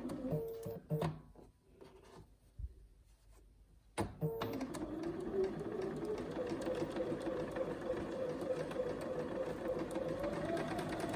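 Electric sewing machine stitching a curved seam. It stops just after the start, and after a pause of about three seconds with a few clicks it starts again about four seconds in. It then runs steadily and slows near the end.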